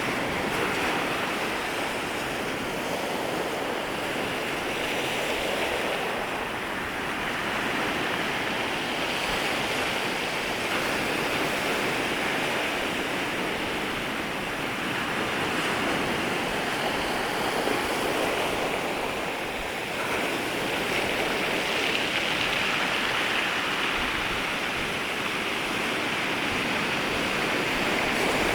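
Sea waves breaking and washing up at the shoreline: a continuous rush of surf that swells and eases gently every several seconds, dipping briefly twice.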